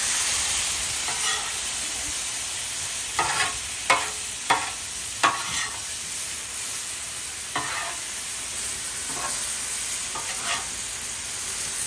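Vegetables sizzling on a hot Blackstone flat-top steel griddle while metal spatulas flip and stir them. Several sharp scrapes and clacks of the spatulas on the steel come in a quick run about three to five seconds in, and once more near eight seconds.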